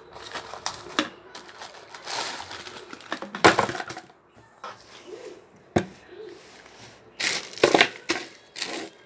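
Crumpled newspaper packing and plastic bags rustling and crackling as hands dig through a cardboard box, in uneven bursts with a few sharp clicks. The loudest handling comes about two to four seconds in and again near the end.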